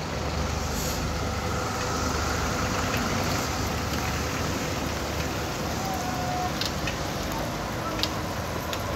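Steady hiss of heavy rain mixed with the engine rumble of buses and cars standing in a traffic jam on a wet road.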